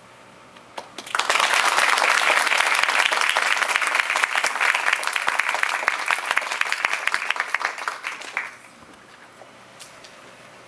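Audience applauding: a round of many people's hand-clapping that starts about a second in and stops abruptly at about eight seconds.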